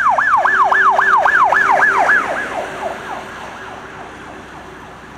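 Emergency-vehicle siren on its fast yelp setting, the pitch swinging up and down about four times a second. It is loud at first, fades over about a second starting about two seconds in, and is gone by three seconds, leaving wet-road traffic noise.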